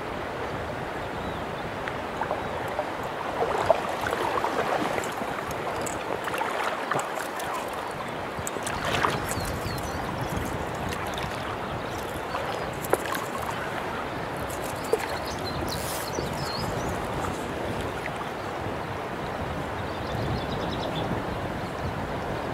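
Stream water running steadily over stones, an even rush with a few sharp clicks scattered through it.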